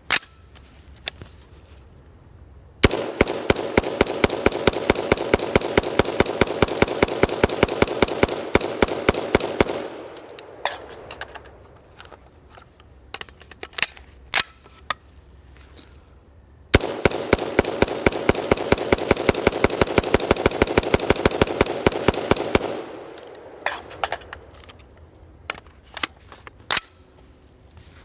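A BCM AR-15 in 5.56 firing fast semi-automatic strings: two long runs of about six to seven shots a second, each lasting about six to seven seconds, with a pause of several seconds between them and a few isolated cracks. The rifle is hot, uncleaned and unlubricated after about a thousand rounds, and still cycling steadily.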